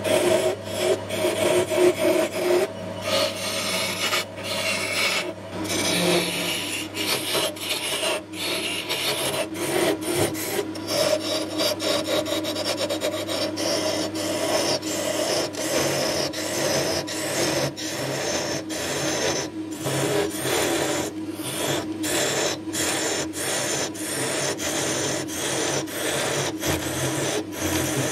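Wood lathe running with a steady hum while a hand-held turning tool cuts a spinning wooden spindle: a rough shaving, scraping sound that comes and goes with each pass of the tool.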